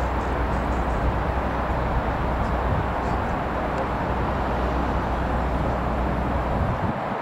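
DB Class 67 diesel locomotive approaching with a steady rumble from its EMD 710 two-stroke V12 engine. The deepest part of the rumble falls away shortly before the end.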